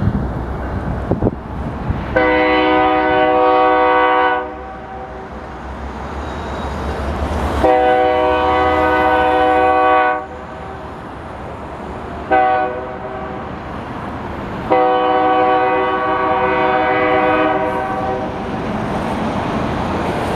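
BNSF freight locomotive horn blowing the long-long-short-long pattern: two blasts of about two seconds, a brief one, then a third long one. This is the standard grade-crossing signal. Between blasts the train rumbles as it pulls out.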